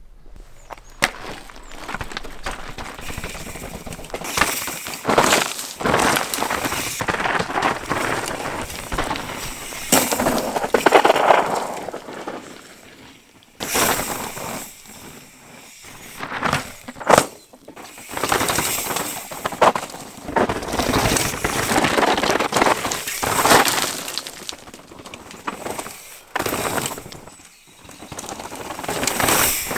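Mountain bike riding fast down a rocky dirt trail: tyres crunching and skidding over loose stones, with sharp knocks as the bike hits rocks. The noise swells and fades several times.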